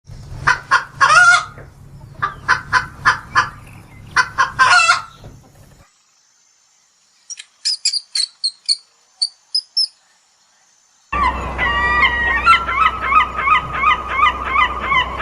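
A run of farm bird calls: loud honking calls in quick groups of three or four, then short high chirps after a pause, then a fast repeated call of about three a second.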